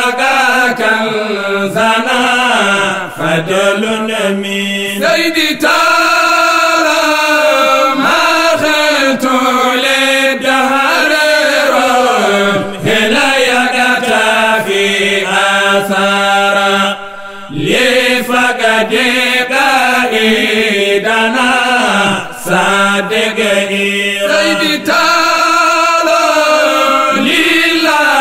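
Two men's voices singing a devotional religious chant in long melodic phrases, with a brief break about seventeen seconds in.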